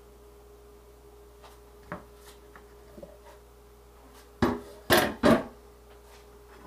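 Wooden cutting board and kitchen knife set down in a stainless steel sink: a few light taps, then three loud knocks in close succession about four and a half to five and a half seconds in.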